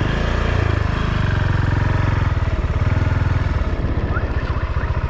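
Motorcycle engine running under the rider, a steady low pulsing. The engine note swells about half a second in and settles back near the end.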